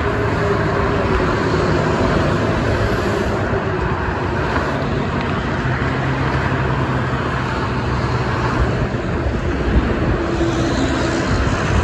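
Steady traffic noise of a busy multi-lane highway: tyre hiss and the engine drone of cars and heavy trucks passing, with the low hum of individual truck engines rising and fading.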